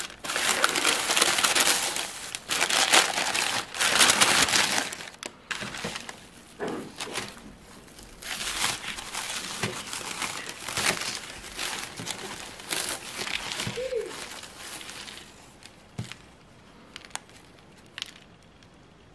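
Plastic carrier bag and paper wrapping crinkling loudly as they are handled and pulled open, then cling film crinkling in shorter stretches as it is peeled off a round pastry. It quietens to a few faint crackles near the end.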